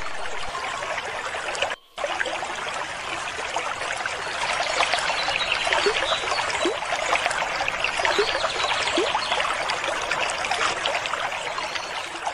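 A thin stream of water from a small tube splashing onto plastic toy animals and a wet concrete floor, a steady trickling patter broken once, briefly, about two seconds in.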